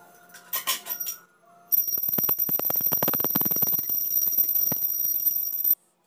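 Puja hand bell rung rapidly for about four seconds: quick clapper strikes under a steady high ringing, cutting off suddenly near the end. A few short sounds come just before it.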